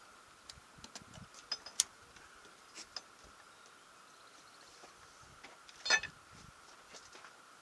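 Scattered light metallic clicks and taps from hand tools and metal parts being handled, with a louder clattering rattle about six seconds in.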